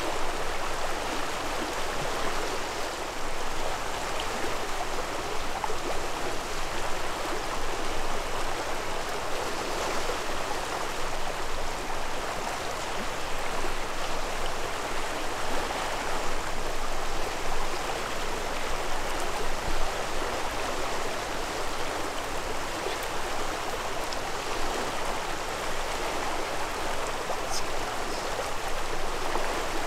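Shallow river running over gravel: a steady, even rushing of water.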